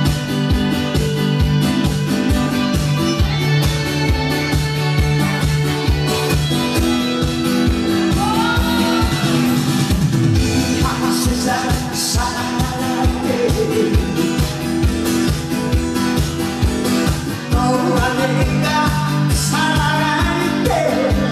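Loud live band music with a fast steady beat and held keyboard chords, and a singing voice that slides in pitch around the middle and again near the end.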